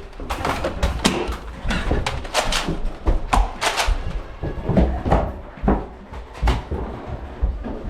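Irregular sharp clacks and knocks, several a second, over a low rumble of movement: the clatter of a Nerf gunfight in play.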